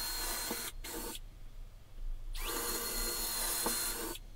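Handheld power drill with a larger pilot bit boring a pilot hole through a wooden board into a wall stud. The motor runs with a steady whine and stops about a second in. It then spins up again a little past two seconds and runs until just before the end.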